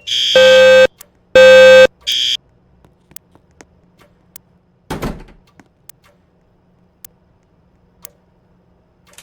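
Fire alarm sounders giving a short high beep, then two loud half-second tones about a second apart and one more short high beep, before the alarm stops about two and a half seconds in. After that come faint scattered clicks and a single thump about five seconds in.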